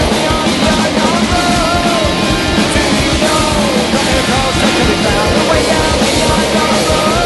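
Loud rock music with a singing voice, playing continuously.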